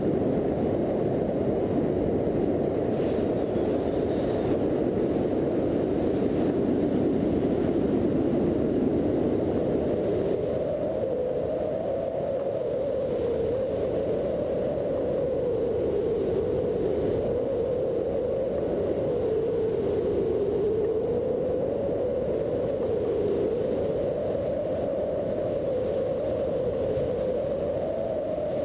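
Paratrike's engine and pusher propeller running steadily in flight, a loud droning whir. From about ten seconds in, the pitch wavers gently up and down.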